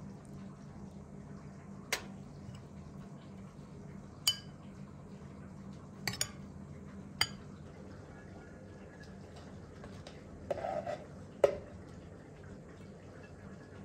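A metal spoon clinking now and then against a glass bowl and china plates as saffron rice is stirred and dished out, about eight separate clinks with the loudest near the end. A low steady hum runs underneath.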